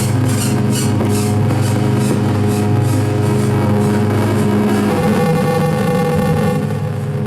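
Live electronic noise music: a loud sustained low drone, with rhythmic pulses of high noise that fade out in the first second or so. About five seconds in, the low drone breaks up and a stack of steady buzzing tones comes in.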